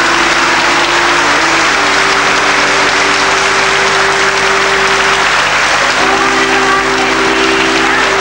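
A crowd applauding steadily, with held musical notes underneath that shift to new pitches every few seconds.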